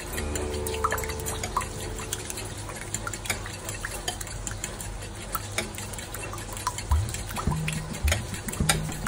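A metal spoon stirring a thin egg batter in a ceramic bowl: wet slopping with many quick, light clinks of the spoon against the bowl, and a few harder knocks near the end.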